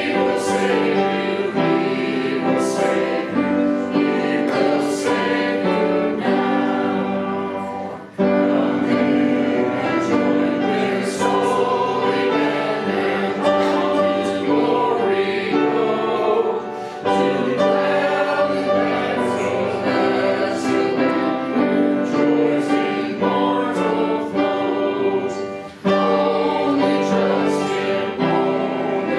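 Church congregation singing a hymn with instrumental accompaniment, in phrases of sustained notes with short breaks between lines.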